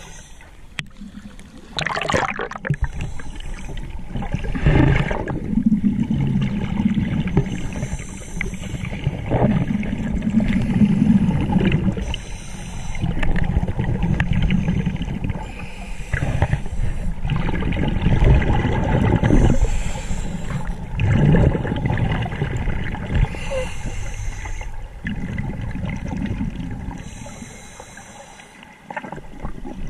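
Underwater sound of scuba breathing through a regulator: a short hiss on each breath in and a gurgling rush of exhaled bubbles, repeating every four seconds or so.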